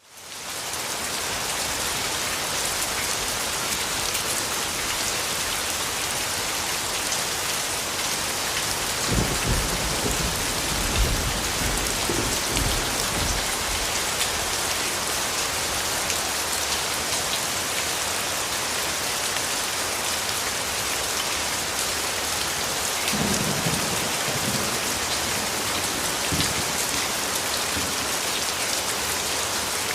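Steady heavy rain hissing, fading in from silence in the first second, with low rumbles of thunder twice, a long one about a third of the way in and a shorter one near the end.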